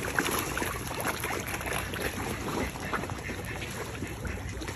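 Water splashing and slurping as a crowd of large bass and catfish thrash and gulp popcorn at the surface, with many small sharp splashes and gulps scattered through a steady churning wash.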